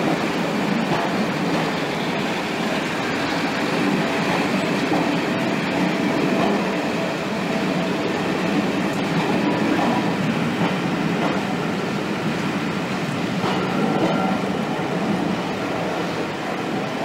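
British Rail passenger coaches rolling past and away, with a steady rumble of wheels on rail and a few brief, faint wheel squeals.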